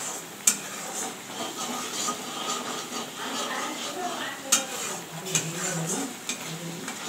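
Metal spatula stirring and scraping a thick masala paste frying in oil in a wok, with a sizzle under it and occasional sharp clinks of the spatula on the pan, the loudest about half a second in and again past halfway.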